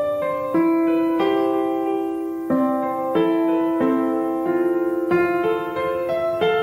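Background music: a piano playing slow, sustained chords, with a new chord or note struck about every half second to second.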